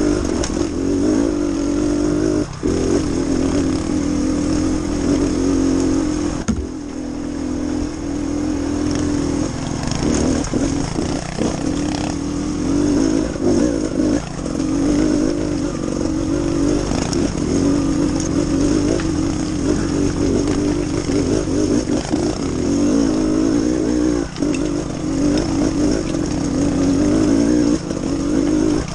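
Trials motorcycle engine running as the bike is ridden along, the revs rising and falling with the throttle, with a few brief drops in level.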